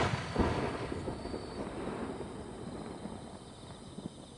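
The boom of an aerial firework shell burst dying away: a second thud about half a second in, then a long rolling rumble that fades out.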